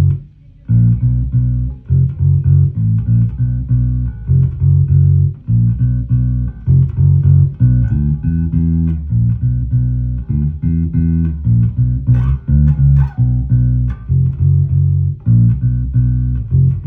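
Ibanez electric bass played through a Gallien-Krueger Legacy 210 bass combo amp: a steady run of plucked low notes.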